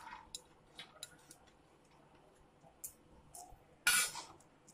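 Chopped onion tipped from a small steel bowl onto a steel plate of ground dal: scattered light clicks and taps, with one louder short noisy burst about four seconds in.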